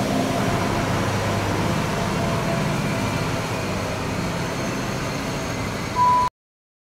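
Plasser & Theurer Unimat track tamping machine's diesel engine running as it moves away, slowly fading. A short high beep sounds near the end, and then the sound cuts off suddenly.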